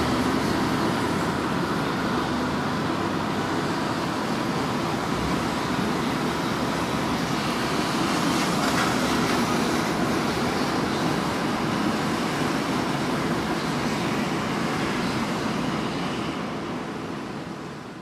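Strong wind rushing steadily during a storm, with a car's tyres hissing past on the wet road about halfway through. The sound fades out near the end.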